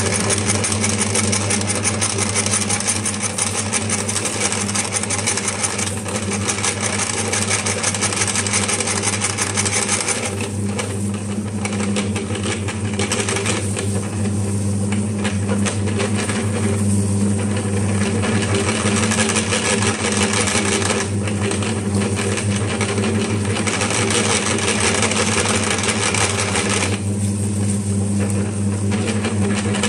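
Electric meat grinder running steadily with a low motor hum, its auger crushing wafer cookies and forcing them through the holed plate with a dense crackling crunch that thins out in a few stretches.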